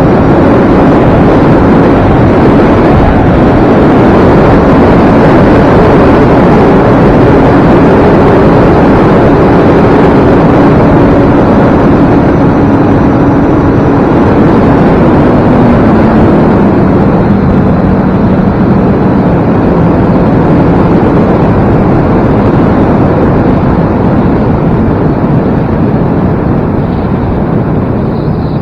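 Electric motor and propeller of an E-flite Carbon Cub S2 RC plane running in flight under heavy rushing wind noise, with a steady hum that drops in pitch a little past halfway.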